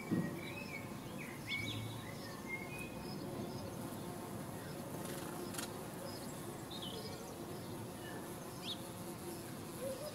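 Garden ambience: a flying insect buzzing steadily, with short small-bird chirps scattered through, mostly in the first few seconds and again near the end. There is a brief low bump right at the start.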